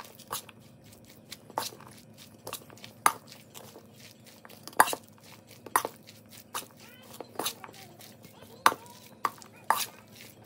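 Metal tablespoon stirring chicken salad in a stainless steel mixing bowl, clinking and scraping against the bowl's side in sharp, irregular knocks roughly once a second.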